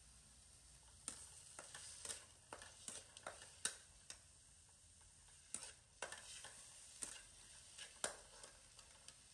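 A utensil stirring and scraping food in a steel pan on the stove: a quick run of clinks and scrapes against the pan, a short pause, then a second run.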